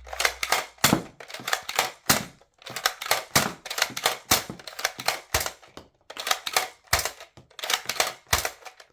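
Nerf Strongarm dart blaster being primed and fired again and again: a run of sharp plastic clacks and thunks in quick clusters with short pauses between them. The blaster is working.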